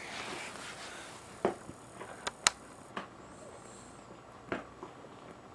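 Quiet room tone with a handful of short, faint clicks and taps scattered through it, about five in all.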